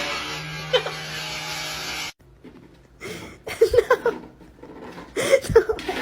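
A steady rushing noise for about two seconds that cuts off suddenly, then a person laughing in two short bursts.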